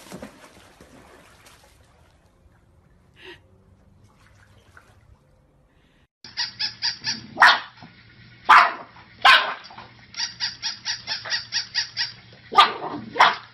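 Battery-operated toy puppy yapping in a fast, even run of about four or five short yaps a second over the steady hum of its motor, starting about six seconds in. A few louder, fuller barks break in among the yaps.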